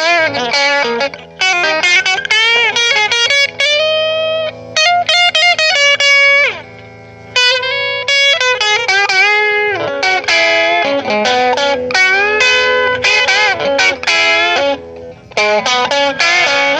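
Electric guitar on its bridge pickup, guitar volume full up, played through a Trinity Tweed amp: single-note lead phrases with many string bends and a few chords, with a short pause about halfway through.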